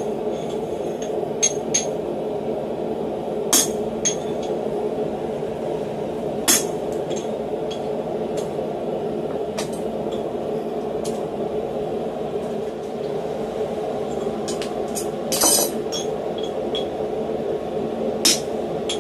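Hammer blows on steel at the anvil while cutting a small piece of flat bar: sharp metallic clinks, sparse and irregular, with the loudest cluster about fifteen seconds in. A steady rushing noise runs underneath.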